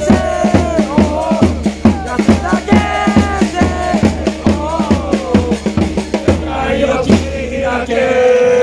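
Football supporters chanting a song together in unison to a steady, quick bass-drum beat; near the end the drum drops away and the crowd holds one long note.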